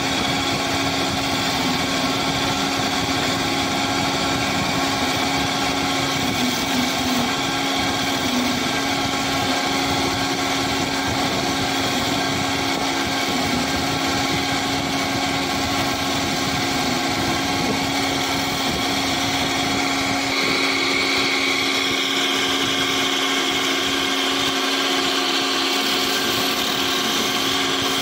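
Wood lathe running with a turning chisel cutting into a spinning wooden spindle: a steady motor hum under the hiss and scrape of the cut. The pitch of the sound changes a little about twenty seconds in.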